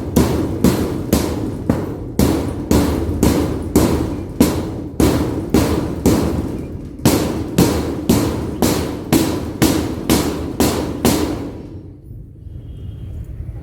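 Hammer nailing tin roofing sheets to wooden poles: steady blows about two a second, each with a short metallic ring. There is a brief pause about halfway, and the blows stop shortly before the end.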